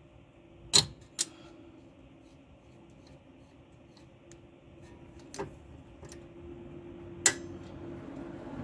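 Sharp metal clicks of a wrench and grip working the lower nut of a sway bar end link. A close pair about a second in, then two more spaced a couple of seconds apart, over a faint hum that grows near the end.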